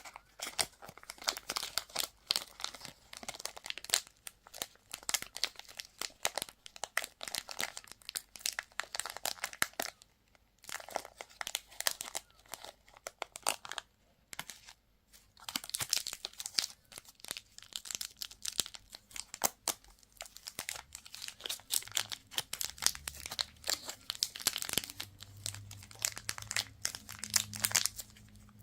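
Candy and toy packaging being unwrapped by hand: crinkly wrappers crackling and tearing in a dense, irregular run, with two short pauses about ten and fourteen seconds in.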